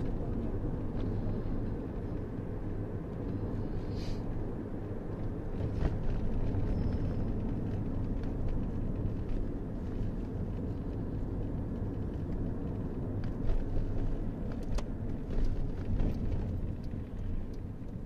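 Steady low road and engine rumble inside the cabin of a car driving at moderate speed, with a few short knocks near the end.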